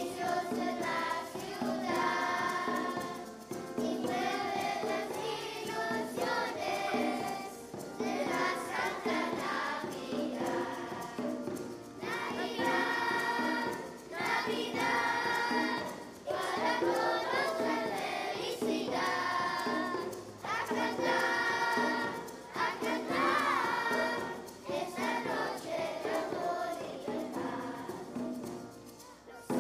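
Children's choir singing, phrase after phrase, each about four seconds long with a short break between.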